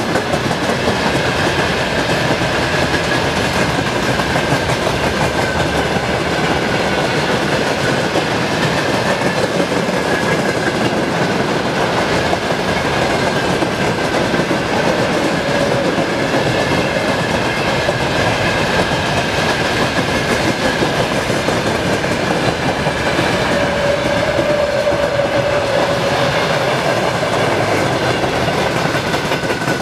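A long train running past at steady speed, its wheels clattering continuously on the rails, with a steady high ringing tone and a lower tone rising for a few seconds in the second half.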